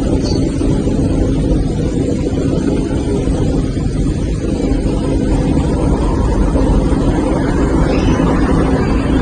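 A running engine: a steady low drone that holds at one pitch throughout.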